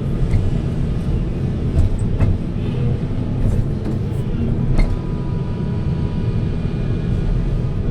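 Heavy diesel machinery running steadily with a deep rumble, with a few short knocks or clanks about two seconds in and again near five seconds.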